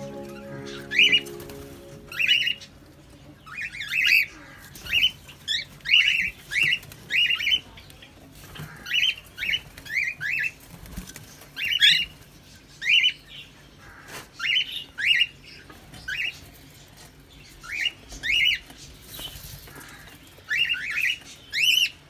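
Cockatiels calling with short, sharp squawks in quick runs of two to four, over and over. Background music fades out in the first couple of seconds.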